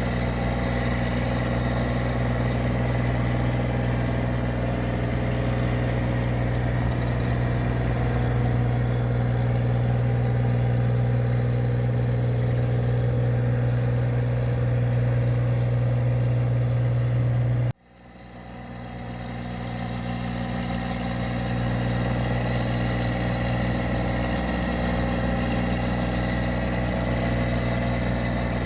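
A paddy machine's engine running steadily, a constant drone with a strong low hum. About two-thirds of the way through, the sound cuts out abruptly and then fades back up over a few seconds to the same steady running.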